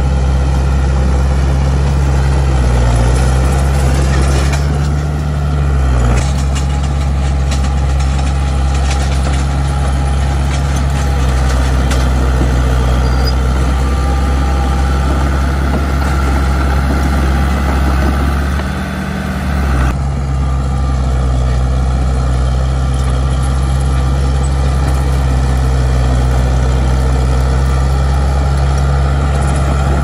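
Heavy diesel engine of earthmoving equipment running steadily, with brief changes in engine speed about five seconds in and again near nineteen seconds.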